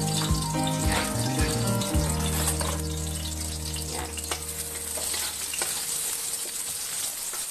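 Garlic and onion sizzling in hot oil in a wok, stirred with a wooden spatula that scrapes and taps the metal. Low background music plays under it and fades out about two-thirds of the way through.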